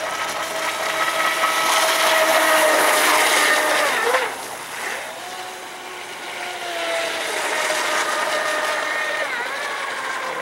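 Miss Geico electric RC racing boat running fast across a pond: a steady motor whine over the hiss of its hull and spray. The whine falls away suddenly about four seconds in, dipping slightly in pitch, then builds again.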